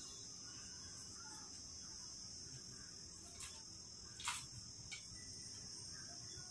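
Quiet handling of a glass beer bottle: a few faint taps and rubs about three to five seconds in as fingers adjust thread wound round its neck, over a steady high-pitched hum.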